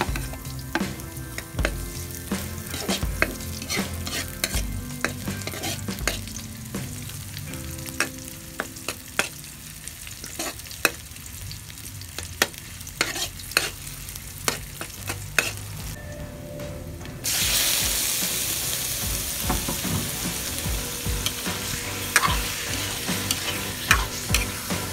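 Metal spatula clicking and scraping against an aluminium wok as garlic and onions sauté in oil. About two-thirds of the way through, a loud sizzle starts suddenly as raw chicken livers go into the hot oil, and the spatula clicks carry on over it.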